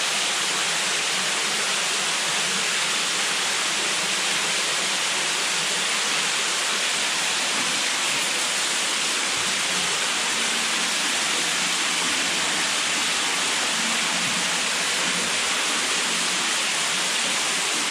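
Water running and splashing steadily in a narrow cave passage: an even, unbroken rushing hiss.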